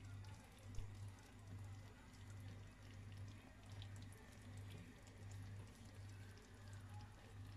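Faint crackling and ticking of chicken adobo sauce simmering in a pan, over a low hum that pulses on and off about every two-thirds of a second.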